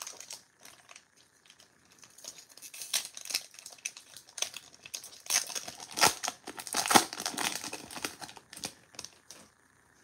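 Plastic wrapper of a Topps baseball card pack crinkling and tearing as it is ripped open by hand. The crackling is loudest and densest in the second half.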